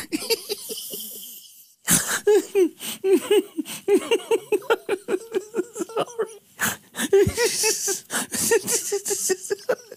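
A man laughing in an uncontrollable fit, short pulses of laughter coming several a second after a brief pause about two seconds in.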